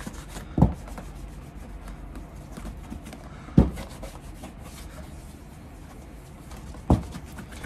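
A cloth rubbing over the soft, thin leather of a shoe as liquid cleaner is worked in and wiped off to lift old cream and wax. Three dull knocks come about three seconds apart.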